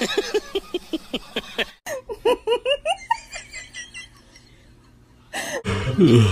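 Bursts of high-pitched giggling laughter in two spells, split by a brief break about two seconds in. Near the end comes a louder sound that slides down in pitch.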